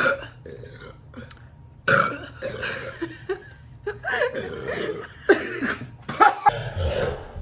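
Loud burps brought up by gulping carbonated ginger ale. One short burp comes at the start, then a string of longer, throaty belches follows from about two seconds in.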